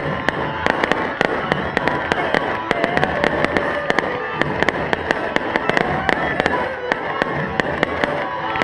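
Fireworks going off in a rapid, irregular run of sharp pops and crackles, several a second, with music playing underneath.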